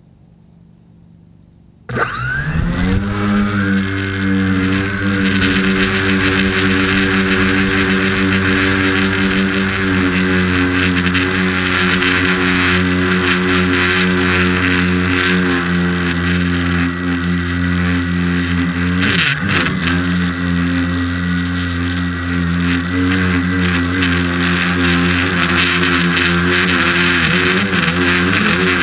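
Tricopter's three NX-4008 brushless motors and 10-inch props, heard from the onboard camera, start suddenly about two seconds in, rise quickly in pitch and then run steadily at high power through the climb, with a short wobble in pitch about two-thirds through. Over the motors runs a buzzing rattle from the broken cover plate rattling on its stand-offs, the sign of vibration in the airframe.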